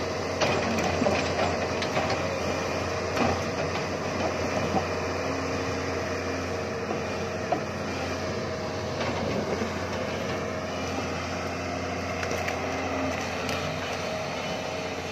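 Doosan crawler excavator's diesel engine running steadily under load while its grapple picks up tree stumps and branches, with scattered cracks and knocks of wood.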